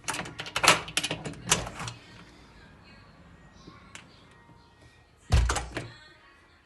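A run of clattering knocks for about two seconds, then quiet, then a single heavy thump with a brief rattle about five seconds in.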